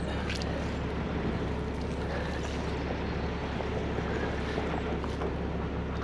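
A diesel engine idling steadily with an even, unchanging hum.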